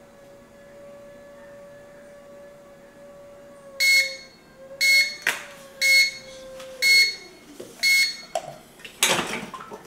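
Heat press timer beeping five times, about once a second, marking the end of a pressing cycle, over a steady hum that slides down in pitch and fades. A short rushing noise follows near the end.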